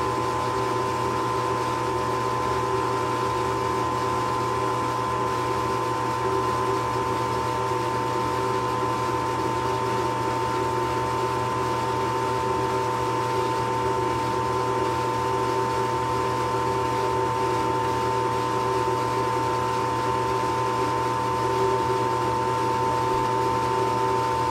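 Furnace running with a steady mechanical hum made up of several constant tones, unchanging throughout.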